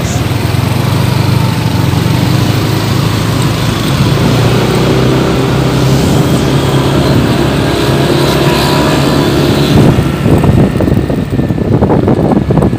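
Vehicle engine running steadily while driving through town traffic, with wind buffeting the microphone over the last few seconds.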